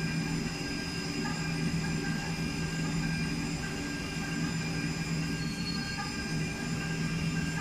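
High-speed spindle of a CNC milling machine running while its end mill cuts a metal block under a coolant mist spray. The sound is a steady hum with several steady high whining tones over an even hiss.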